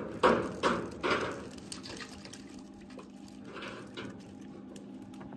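Live fish crowded in a pulled-up net pen thrashing and splashing the water, a few splashes in the first second or so, then quieter lapping and trickling.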